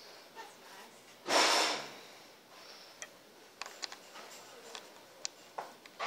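One loud sniff about a second in, then a few light clicks from a small metal release knob being handled and offered up to its shaft under a chiropractic table's leg extension.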